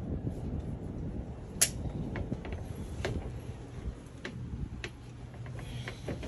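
Irregular sharp metallic clicks and taps of hand tools and engine parts being handled during engine assembly, the loudest about one and a half seconds in, over a steady low hum.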